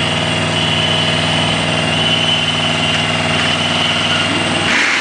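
An engine running steadily at low speed, a low hum with a thin high whine above it. Near the end there is a short noisy swell.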